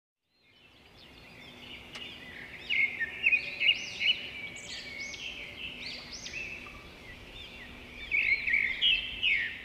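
Birds chirping and singing, many quick overlapping calls and short whistled phrases, fading in at the start and busiest in two spells, early and near the end, over a faint steady hum.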